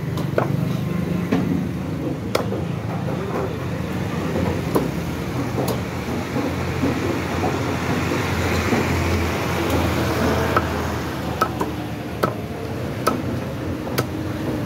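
Meat cleaver chopping chicken on a wooden chopping block: sharp, irregular knocks, coming faster near the end, over a steady rumble of road traffic.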